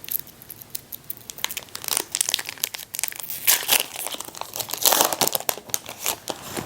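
Foil wrapper of a Disney Lorcana trading-card booster pack crinkling and tearing as it is pulled open by hand. The crackles are irregular, and the pack is hard to pull open.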